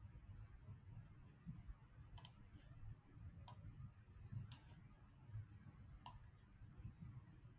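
Faint, sharp computer mouse clicks, about four at irregular intervals a second or so apart, made while drawing chart levels, over a faint low room hum.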